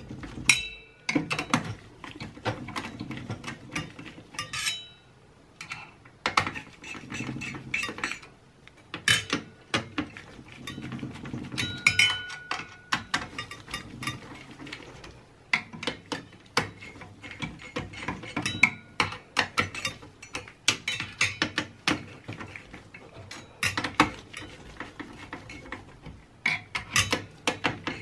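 Phillips screwdriver turning the CPU heatsink's screws into a workstation motherboard: irregular small metallic clicks, scrapes and rattles of metal on metal, over and over.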